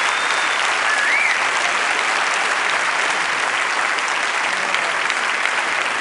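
Large audience applauding, dense steady clapping throughout.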